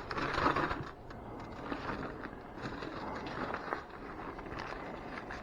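Rustling and light scraping of old papers and debris being handled, loudest in the first second, with a few faint clicks.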